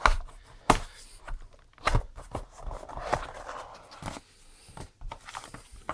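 A small cardboard accessory box being opened by hand and the paper manuals inside taken out: several sharp taps and knocks of cardboard, with a short rustle of paper about three seconds in.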